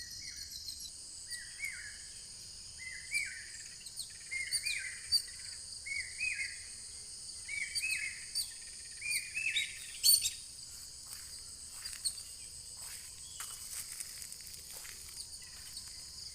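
Steady high-pitched chorus of crickets, with a bird singing a quick run of short rising chirps, a little under two a second, through the first ten seconds or so. There is a single sharp click about ten seconds in, after which only scattered faint calls remain over the insects.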